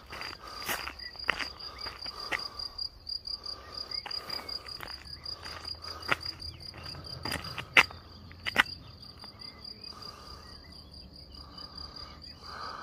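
Insects chirping in the field: a steady, rapidly pulsing high trill, with a few sharp clicks over it, the loudest about eight seconds in.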